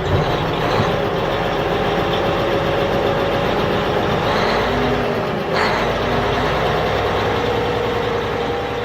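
Truck engine running steadily at a low idle.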